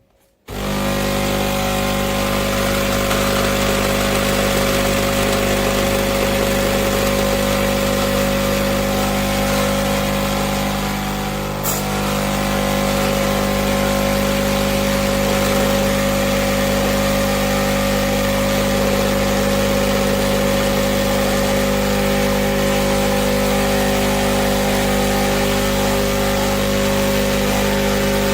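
Krups Nescafé Dolce Gusto Mini Me capsule coffee machine's pump running while brewing: a loud, steady hum that starts abruptly, with a single sharp click about twelve seconds in.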